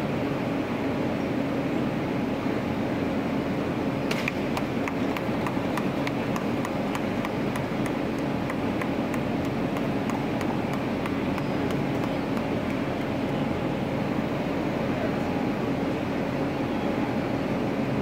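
Steady machinery hum in a large locomotive shed with crowd chatter underneath. About four seconds in, a quick, even series of sharp clicks starts, roughly three a second, and dies away about ten seconds later.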